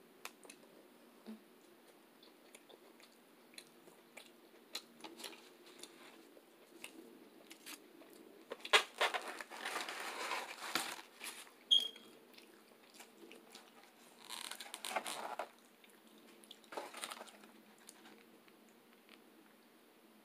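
A person chewing a mouthful of leafy greens close to the microphone, with small wet mouth clicks and louder stretches of chewing noise about nine seconds in, around fifteen seconds and again near seventeen seconds.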